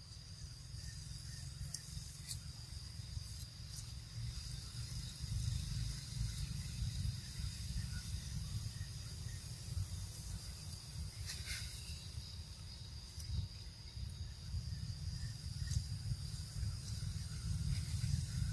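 Outdoor ambience: a steady, thin, high insect drone over a low rumble of wind on the microphone, with a few faint clicks, the clearest about eleven seconds in.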